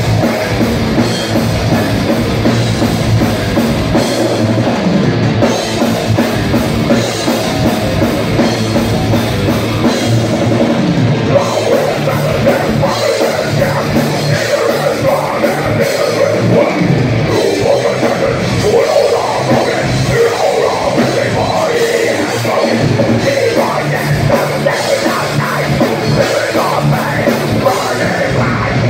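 Heavy metal band playing live: electric guitars, bass guitar and drum kit, with a singer on vocals.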